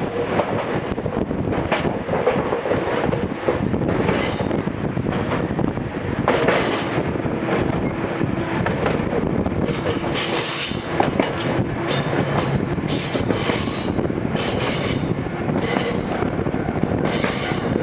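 Gakunan Railway 7000 series electric railcar running, heard from inside the car as a steady rumble and rattle of wheels on rails. From about ten seconds in, a high ringing sounds again and again, roughly once a second.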